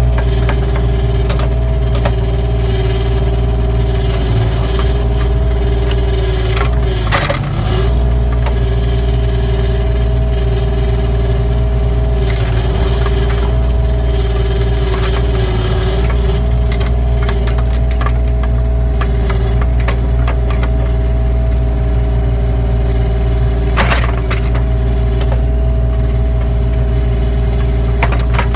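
A 25-horsepower mini excavator's engine running steadily under load, with a steady hydraulic whine as the bucket, stick and boom are worked. Two sharp cracks or knocks stand out, about 7 seconds in and again near 24 seconds.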